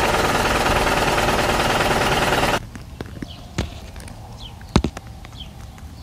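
A loud, steady truck-engine rumble cuts off abruptly about two and a half seconds in. Quiet outdoor ambience follows, with short falling bird chirps about once a second and a few sharp knocks.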